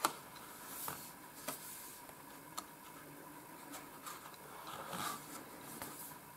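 Thick art cards being handled and swapped one after another: faint papery slides and a few light taps of card against card.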